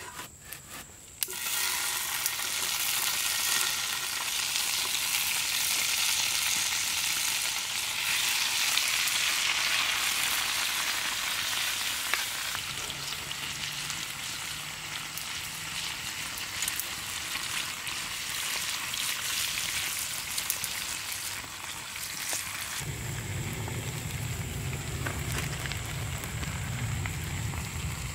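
Fajita fillings sizzling in a hot pan over a campfire. The sizzle starts suddenly about a second in, as the food hits the pan, and runs loud and steady, easing off near the end as a low steady rumble comes in.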